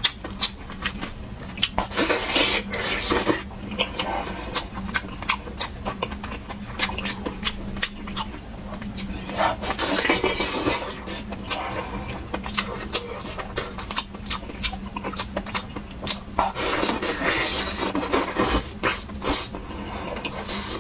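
Close-up eating sounds of a person biting into and chewing a thick slab of braised pork belly: many sharp mouth clicks and smacks, with three longer, noisier stretches of biting and chewing, over a faint steady hum.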